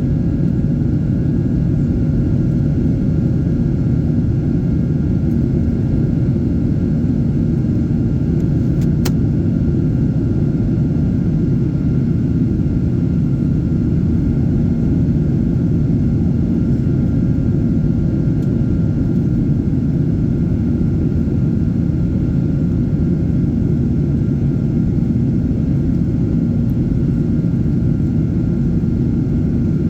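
Steady low rumble of a Boeing 737-900ER's CFM56-7B jet engines after takeoff, with faint steady tones above it. A brief click comes about nine seconds in.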